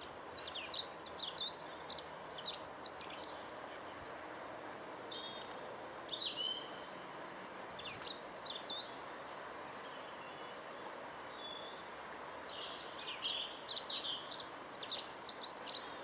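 Small birds chirping and singing in bursts of quick, high chirps, with quieter gaps between them, over a steady background of outdoor ambient noise.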